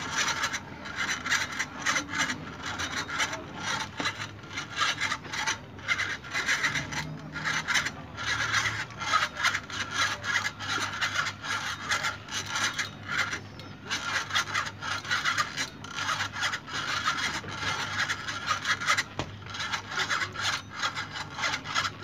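Spinning reel being cranked steadily on a rod, its gears and line roller giving a continuous rapid rasping whir as line is wound in.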